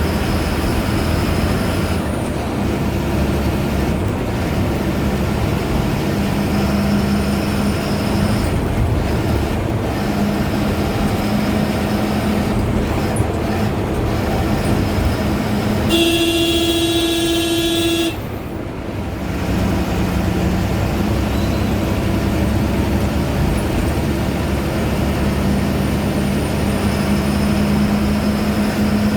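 Ashok Leyland BS4 diesel bus engine running steadily under way, with a thin high turbo whistle over the engine note. About two-thirds of the way through, a horn sounds one steady blast of about two seconds, and the engine goes briefly quieter right after it.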